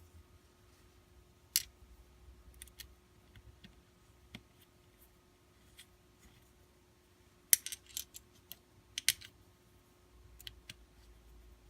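Sharp clicks and taps of small screws and hard plastic holster parts being handled and fitted together, scattered and sparse, with a loudest cluster of clicks about seven and a half to nine seconds in, over a faint steady hum.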